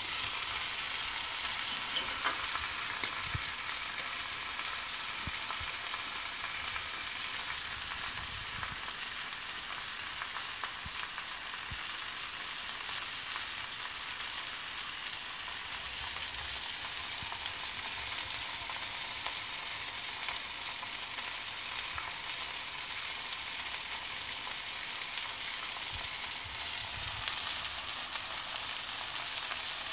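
Pork ribs and pork neck searing in oil on a hot flat griddle plate, sizzling steadily.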